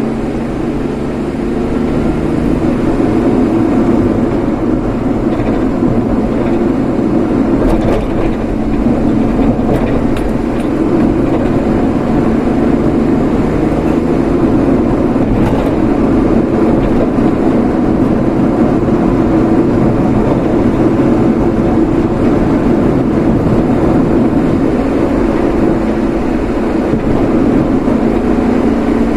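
Steady road and engine noise of a vehicle being driven, holding at a constant level.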